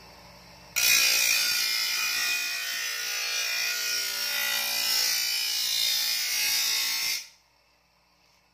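Bench grinder wheel grinding the steel edge of a shovel blade to sharpen it, a harsh, even hiss that starts about a second in and stops abruptly near the end.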